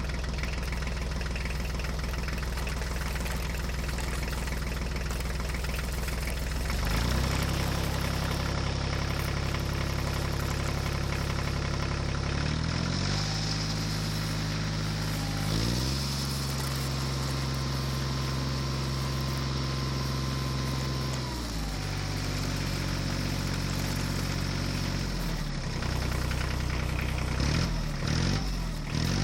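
A vehicle engine running steadily, its pitch shifting up and down in several steps as it revs up and settles back, with quicker rises and falls near the end.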